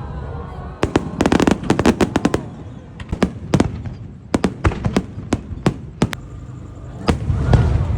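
Fireworks going off: a rapid run of sharp crackling pops about a second in, then single pops spaced through the middle, with a louder, fuller sound near the end.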